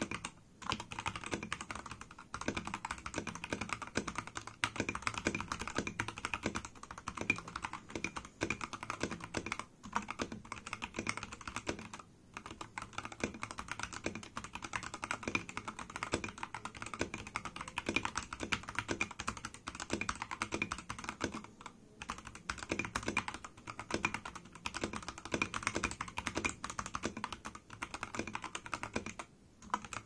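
Fast, continuous typing on an Akko 3068 mechanical keyboard fitted with Tealios linear switches: a dense clatter of key strikes, broken by a few brief pauses, about ten, twelve, twenty-two and twenty-nine seconds in.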